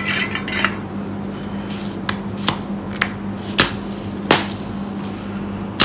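Sharp clicks from a spring-loaded solder sucker (desoldering pump) being cocked and worked, about seven at irregular intervals, its release button sticking. A steady low hum runs underneath.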